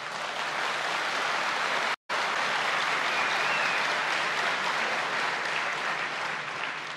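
Audience applauding: many people clapping steadily, with a brief cut-out about two seconds in, dying down near the end.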